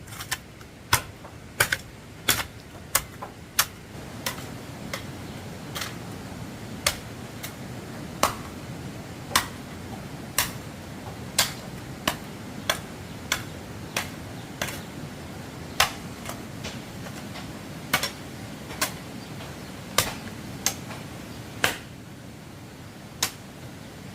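A series of sharp, irregular knocks, roughly one a second, over a steady low background noise.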